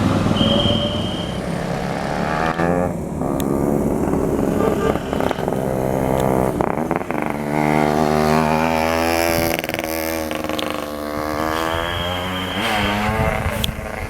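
Tour bus driving past with its engine running, the pitch rising and falling as it goes. A short high steady tone sounds about half a second in and again near the end.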